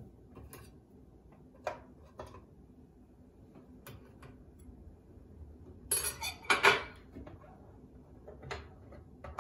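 Metal spatula clinking and scraping against an electric pizzelle iron and a wire cooling rack as pizzelles are lifted out and set down, with scattered light clicks and a louder clatter about six seconds in.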